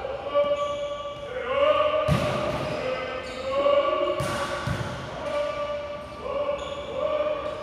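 A ball bouncing, with a few dull thuds, under music with long held sung notes.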